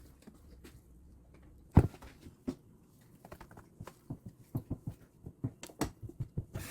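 Scattered clicks and knocks of objects being handled, with one louder knock about two seconds in and a quicker run of small clicks toward the end.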